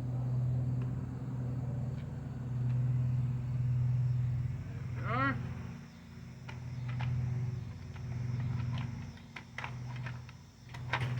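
A steady low engine-like hum that swells and fades every second or two, with a short rising-and-falling chirp about five seconds in and scattered light clicks and taps in the second half.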